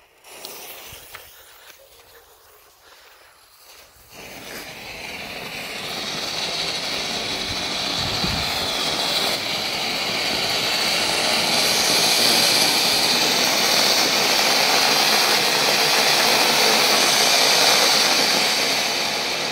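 Keller Vesuv ground-fountain firework: after a few quiet seconds of burning fuse, it catches about four seconds in and sprays sparks with a hiss. The hiss swells over several seconds into a loud, steady rushing.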